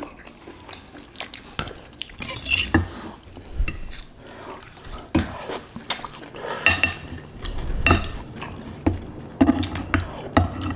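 Metal and wooden spoons clinking and scraping against a glass dish and a ceramic bowl while soup is scooped out, with liquid dripping and splashing. The clicks come at irregular moments throughout.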